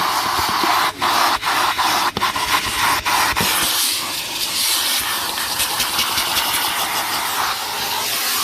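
Numatic NTD570 commercial vacuum cleaner running as it vacuums a car, a loud steady rushing hiss of motor and suction. Several short knocks and brief dips come in the first few seconds, as the nozzle bumps and catches on surfaces.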